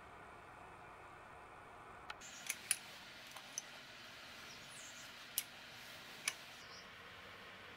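Faint steady hiss with about seven short, sharp, light clicks: a cluster from about two to three and a half seconds in, the loudest among them, then two more, spaced apart, later on.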